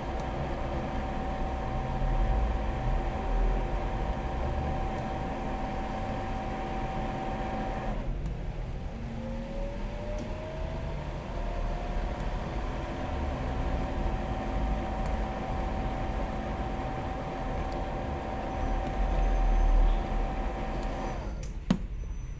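DAB E.sybox pump's motor running with a steady whine. It cuts out about eight seconds in, spins back up with a rising whine, runs steady again, and then stops abruptly near the end, followed by a click.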